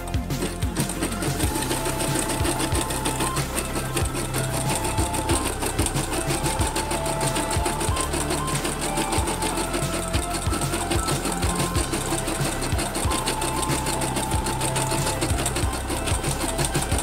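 Computerized embroidery machine stitching a design into a hooped patch, its needle running in a steady stream of rapid strokes.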